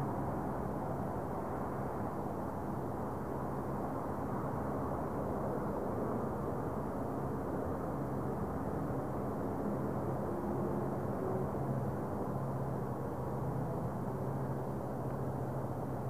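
Distant freeway traffic: a steady low roar, with a faint steady hum under it.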